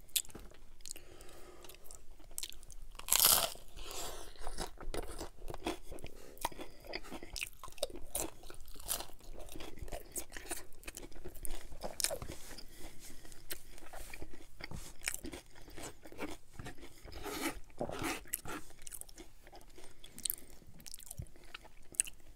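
Close-miked crunching and chewing of hard-shell corn tacos, the brittle shells cracking between the teeth. A loud crunching bite comes about three seconds in, with more strong crunches midway and later, and steady chewing crackle between them.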